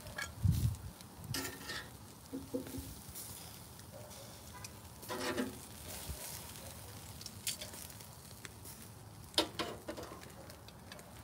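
Steel tongs clicking and scraping against a charcoal grill's metal grate as grilled pork chops are lifted off and set on a plate, over a faint sizzle. There are a few sharp metallic clicks spread out, the sharpest about nine seconds in, and a dull thump just after the start.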